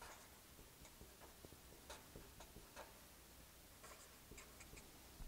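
Marker pen writing on paper: a string of short, faint strokes, busiest near the end.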